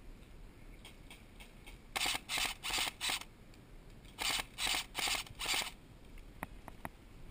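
Airsoft rifle firing short bursts: four quick bursts about two seconds in, then four more about four seconds in, followed by a few faint clicks near the end.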